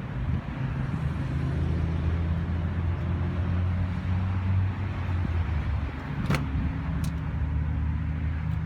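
A car engine idling steadily, a low even hum, with a sharp click about six seconds in and a lighter click a second later.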